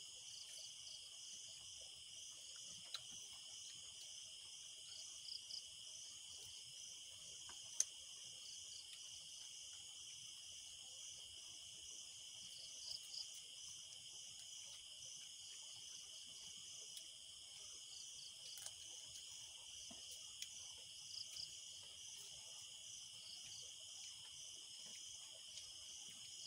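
Faint night chorus of crickets: a steady high trill with a faster pulsing call above it, and short paired chirps every few seconds. A single sharp click stands out about eight seconds in.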